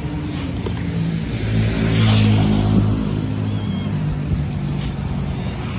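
A motor vehicle's engine running, growing louder to a peak about two seconds in and then easing off, like a vehicle driving past.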